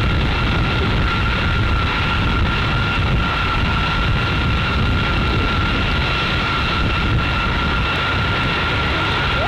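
Jet engines of KC-135R Stratotankers taxiing in formation: a steady low rumble with a high, even turbofan whine over it. Each tanker has four CFM56 (F108) turbofans.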